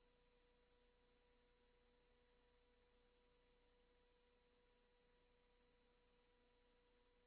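Near silence: only a faint, steady electronic whine of a few pure tones over hiss.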